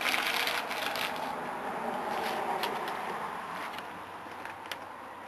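Rustling and crackling handling noise, loudest at the start and fading away, with a few sharp clicks.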